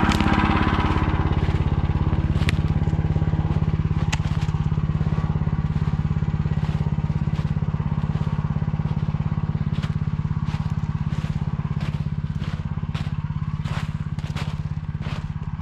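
Motor Sich walk-behind tractor engine running steadily at a low, even speed, with a little more noise in the first second and a couple of sharp clicks.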